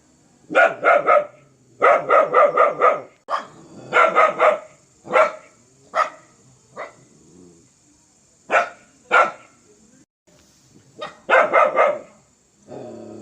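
A dog barking fiercely in quick volleys of three to five barks, with single barks in between. The barks pause for about two seconds near the end, then another volley follows.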